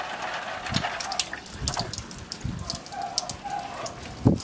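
Water filling a homemade water-filter jar from a tap-fed hose, trickling with irregular drips and small splashes. The water is leaking at a threaded joint that needs more thread-seal tape.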